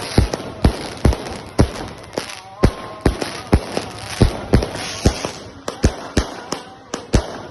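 Firecrackers going off one after another, about two or three sharp bangs a second at uneven spacing, with people's voices between the bangs.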